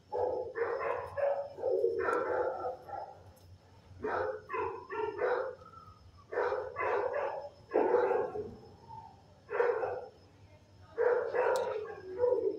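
Dogs barking in an animal shelter kennel: about seven bouts of quick, repeated barks, each lasting a second or so, with short pauses between them.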